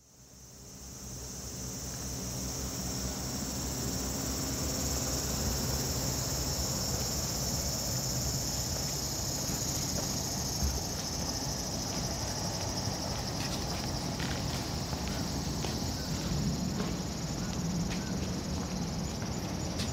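Insects singing in a steady, high shrill chorus that fades in over the first couple of seconds, over a low background rumble.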